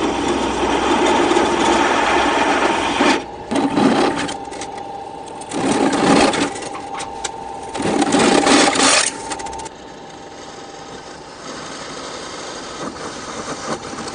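Electric drill running with a MACH drill bit, its motor whining steadily, with three louder spells of the bit cutting into material about two seconds apart; the whine stops near ten seconds in, leaving a quieter noise.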